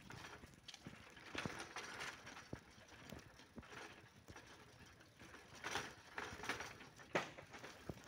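Bicycle rattling and clicking as it rolls over interlocking brick paving: irregular light clicks and knocks, with a louder knock about seven seconds in.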